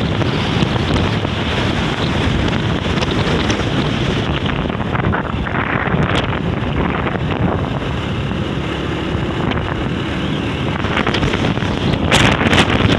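Strong beach wind blowing hard across the microphone, a dense, steady rush of noise. It gusts harder about halfway through and again near the end. The wind is strong enough to lift sand off the beach.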